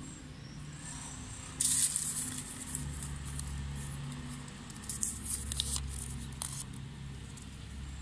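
Folded paper slips rustling and crinkling as hands rummage in a ceramic bowl and unfold one, in two bursts, the first about a second and a half in being the loudest, over a low steady hum.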